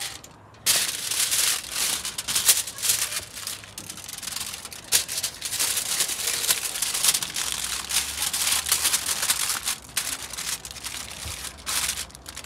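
Aluminium foil crinkling and crumpling as hands fold and press it around a whole fish: a dense run of crackles that starts a little under a second in, with short pauses.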